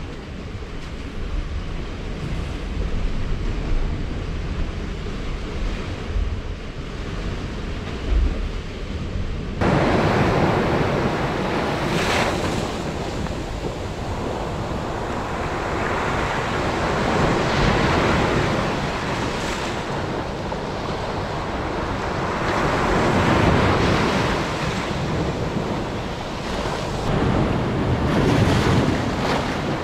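Wind buffeting the microphone for about the first ten seconds, then sea waves washing ashore, swelling and fading every five or six seconds.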